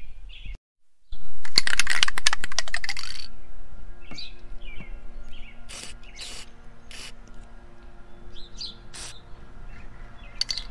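Aerosol can of PB Blaster dry lube spraying through its straw onto the suspension: one long hiss of about two seconds, then several short bursts. Birds chirp in the background.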